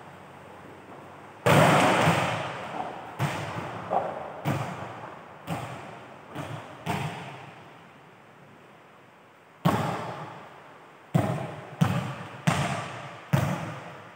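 A volleyball is hit hard about one and a half seconds in and then bounces several times on the court and around the hall, the knocks dying away in a long echo. A second hard hit comes a little before ten seconds in, followed by another run of bounces.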